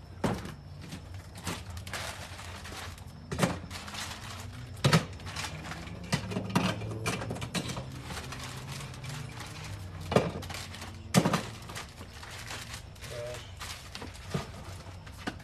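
Irregular knocks and thuds of things being handled and set down while sorting in a garage, about six louder ones. A steady low hum runs underneath.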